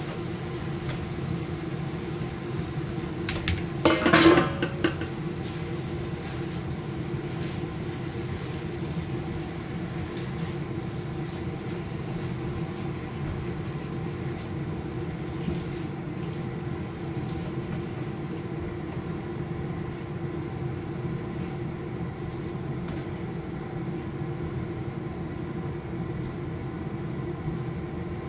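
Spatula stirring mushrooms and chicken in a frying pan on a gas stove, with a loud clatter of cookware about four seconds in and a few light clicks later. A steady low hum runs underneath.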